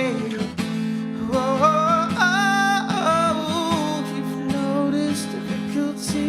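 Acoustic guitar strummed with a man's voice singing long, wavering wordless notes, strongest in the first half.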